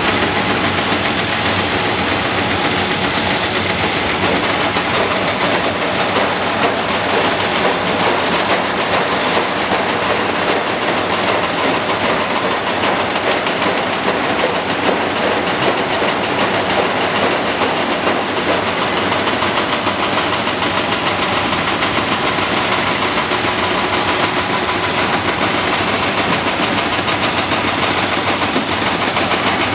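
Steady, dense din of heavy machinery at work: a Cat 330D L tracked excavator's diesel engine and hydraulics running as it digs among broken concrete, with no single knock or impact standing out.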